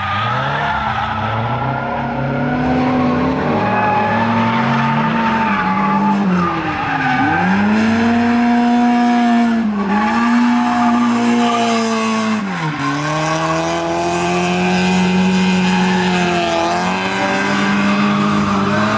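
Toyota AE86 engine held at high revs while the car drifts on a circuit, with tyres squealing. The revs drop sharply and climb straight back about three times.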